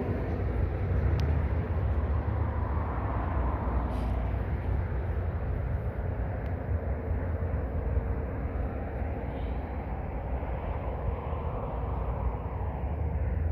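Steady low rumble of outdoor background noise with no single clear source, and a few faint clicks.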